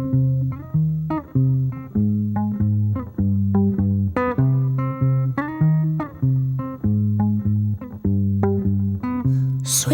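Instrumental music: a plucked bass guitar plays a quick repeating riff of short notes, about three to four a second, with no drums or voice.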